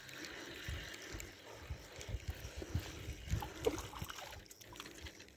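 A hooked fish being played and reeled in on a feeder rod at the water's edge: irregular handling knocks and a faint rush of water.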